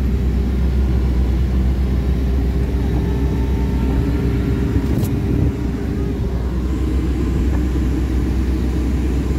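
Ferrari 488 Spider's twin-turbo V8 running steadily, heard from inside the cabin as a low drone with road noise. A single brief click about five seconds in.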